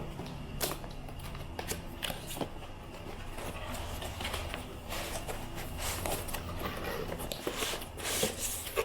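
Cardboard box and packaging being opened and handled by hand: scattered rustles, scrapes and light clicks.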